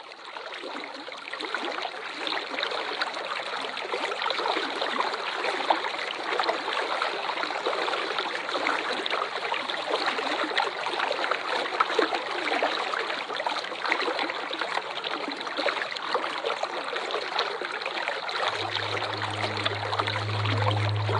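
Waterfall water rushing and splashing in a steady stream, fading in over the first second or so. A low steady hum joins near the end.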